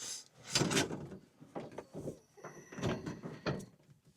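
Irregular knocks, clunks and scraping as a propane tankless water heater is shifted on its wall-mounted hanger to level it.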